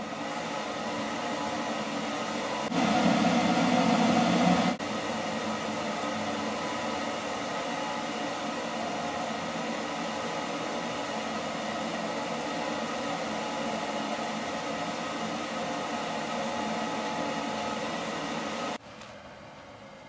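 Centrifugal blower driven by a variable frequency drive, running steadily: a rushing air noise with several steady whining tones over it. About three seconds in it turns louder with a low hum for about two seconds, and near the end the sound drops abruptly to a quieter level.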